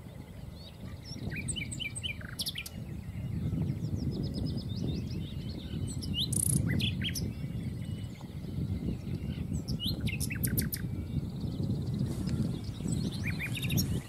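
Common nightingale singing in separate phrases of rapid repeated notes, trills and whistles, with short pauses between phrases. A steady low rumble runs underneath.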